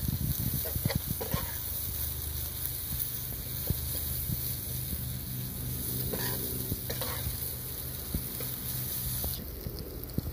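Instant noodles and vegetables sizzling in a hot frying pan while a metal spatula scrapes and clicks against the pan as they are stir-fried. The clicking is busiest in the first couple of seconds, with a steadier sizzle after, which thins near the end.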